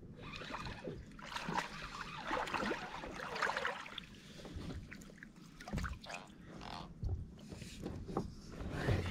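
Water sloshing and splashing beside a kayak, with a few dull knocks.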